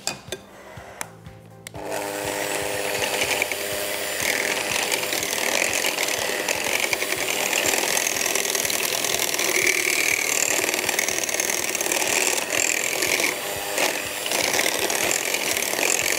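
Electric hand mixer starting about two seconds in after a few handling clicks, then running steadily at speed as its beaters whisk a thin liquid mixture of orange juice, sugar and cream in a glass bowl.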